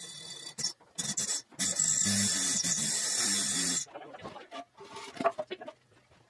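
An overhead hoist lifting a Model A Ford coupe body off its chassis: a loud steady mechanical noise for about two seconds, with knocks and clatter before and after it.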